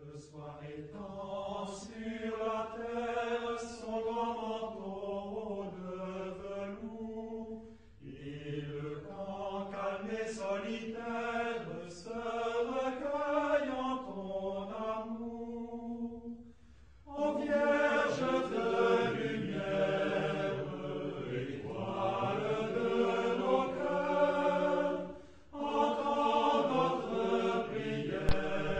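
Chanting voices as a soundtrack, sung in long held phrases with short breaks about eight, seventeen and twenty-five seconds in.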